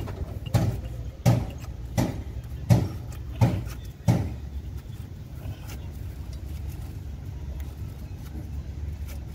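Six metal knocks on a truck's steel steering knuckle, evenly spaced about one every 0.7 s, that stop about four seconds in. A steady low drone runs underneath.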